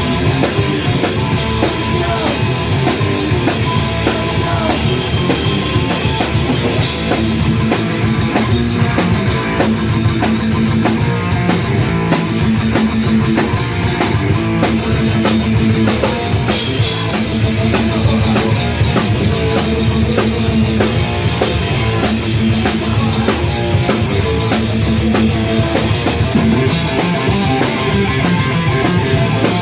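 Live punk rock band playing loud: drum kit with a steady beat and constant cymbal hits, electric guitar and bass.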